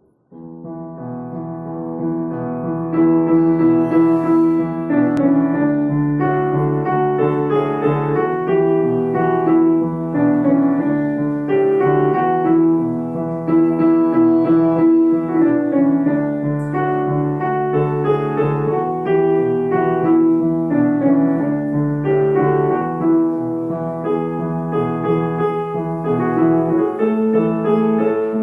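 Background piano music with held notes, fading in over the first couple of seconds.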